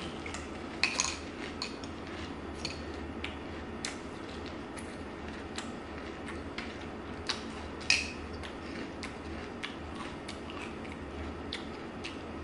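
Metal spoon clinking and scraping against a ceramic bowl of cereal and milk, in scattered small clicks, the loudest about a second in and again near eight seconds.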